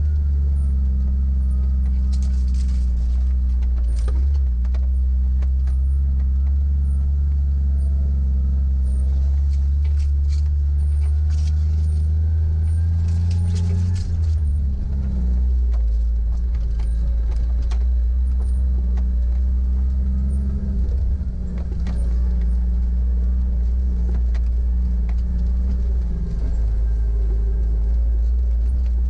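Jeep 4x4 driven slowly over a dirt trail, heard from inside the cab: a steady low engine hum with scattered clicks and rattles over the bumps. The engine note shifts about halfway through.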